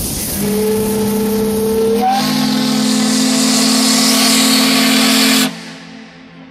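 The steamboat Natchez's steam whistle blowing one long blast. A rush of steam hiss comes first, then several tones sound together, and the whistle grows fuller about two seconds in. It cuts off suddenly near the end, leaving a fading echo.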